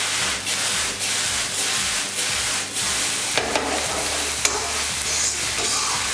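Fried rice sizzling in a pan over high heat as it is stirred and tossed, with irregular sharp clicks of the utensil against the pan.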